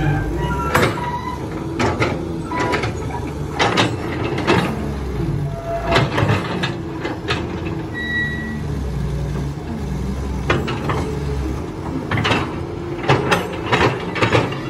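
CAT crawler excavator's diesel engine running steadily while the bucket works dirt and gravel, with irregular sharp knocks and scrapes of steel on stone, bunched near the end. A brief high squeak about eight seconds in.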